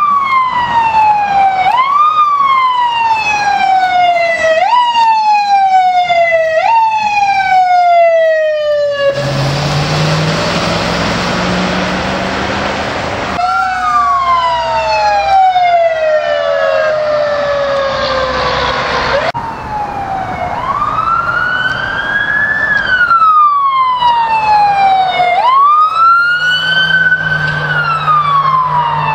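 Fire truck sirens wailing. At first the pitch jumps up quickly and slides slowly down, over and over a couple of seconds apart. Later come longer wails that rise and fall more slowly. A low air-horn blast sounds for a few seconds about a third of the way in, and again near the end under a rising wail.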